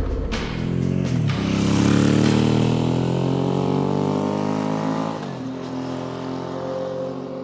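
Suzuki V-Strom motorcycle engine accelerating, its note climbing in pitch, with a brief drop at a gear change about a second in and another about five seconds in, after which it runs steadier and a little quieter.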